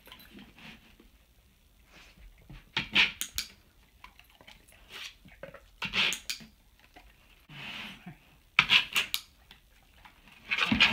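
A dog's claws scraping across an abrasive scratch board, filing the nails down. It comes in four short bouts of several quick strokes each, with pauses between.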